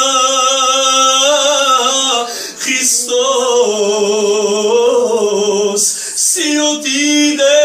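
A man singing a religious praise song solo without accompaniment, holding long ornamented notes with a wavering vibrato. He breaks briefly for breath twice.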